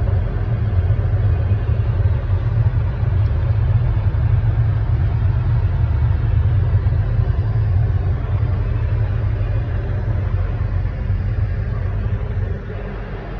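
Steady low rumble of an Airbus A320neo airliner in flight, heard inside its lavatory: engine and airflow noise through the cabin. It drops a little in level near the end.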